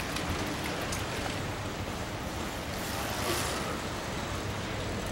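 Steady street and traffic noise with a vehicle running, an even rushing hiss that swells briefly about three seconds in.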